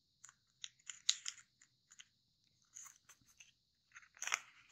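Thin kami origami paper being folded and creased by hand: a string of short, crisp rustles and ticks, with a longer, louder rustle near the end.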